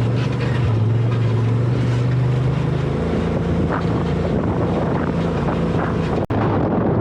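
Side-by-side UTV engine running while riding, with wind buffeting the microphone; the engine note drops about three seconds in.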